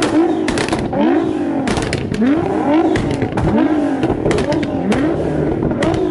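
Nissan GT-R twin-turbo V6 revved in quick blips while standing still, about one and a half rev blips a second, each pitch rising then falling. Sharp cracks come between the blips.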